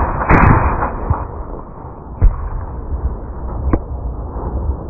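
Colt M16A1 rifle firing 5.56 mm rounds: a short full-auto burst in the first second, a single loud shot about two seconds in, and a sharper, lighter crack near the end.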